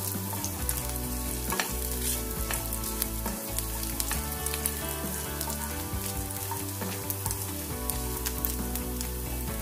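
Small chopped coconut pieces frying in oil and ghee in a shallow pan, sizzling with a steady crackle of small pops; a spatula stirs them through the pan near the end.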